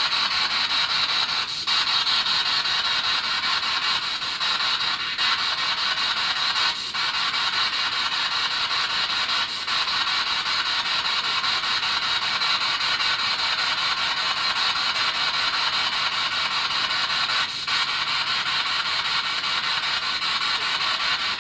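Spirit box sweeping radio frequencies: a steady, loud hiss of radio static, with a brief click now and then.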